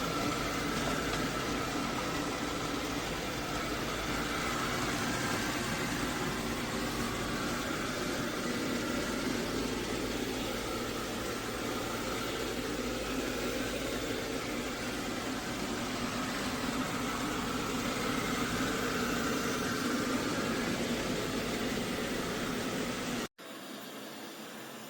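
FIXR T20 Plus robot vacuum running, a steady motor hum with a faint whine. It cuts off abruptly near the end.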